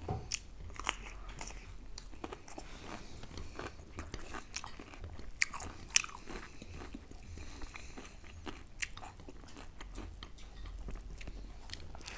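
Close mouth sounds of eating: chewing and crunchy bites, with many small clicks and two sharper snaps about five and a half and six seconds in.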